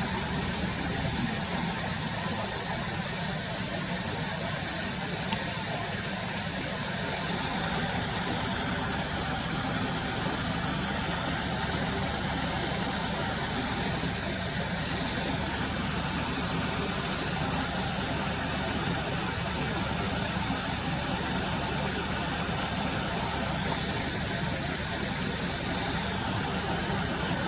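Car engine idling with a steady low hum, heard from inside the car. Over it runs a constant high-pitched buzz that swells every few seconds.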